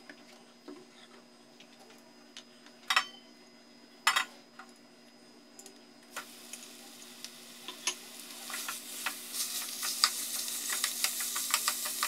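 Two sharp knocks, then minced beef dropping into hot oil in a nonstick frying pan and sizzling, the sizzle growing steadily louder. Chopsticks click against the pan as the meat is spread out.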